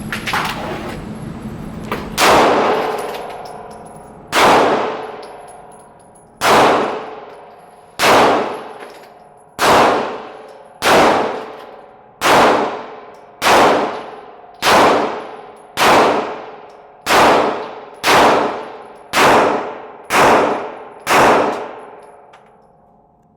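A handgun fired about fifteen times, slowly at first and then faster. Each shot is sharp and is followed by a metallic ringing decay.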